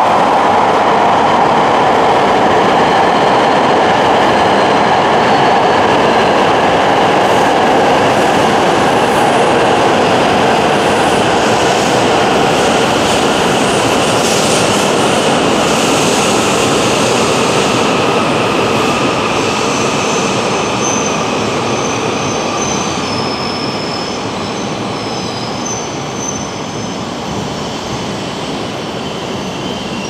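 E5 series Shinkansen pulling into a station platform and slowing to a stop: a loud, steady rush of running noise that slowly fades as it slows, with faint high-pitched squeals in the second half.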